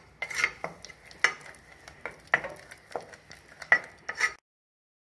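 Wooden spatula mashing soft cooked moong dal in a steel pressure cooker: a wet scraping, with a sharp stroke against the pot about once a second. It stops dead shortly before the end.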